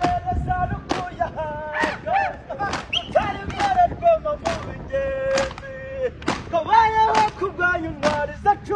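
A group of soldiers singing a Kinyarwanda military chant behind a lead voice, clapping their gloved hands in rhythm about once or twice a second.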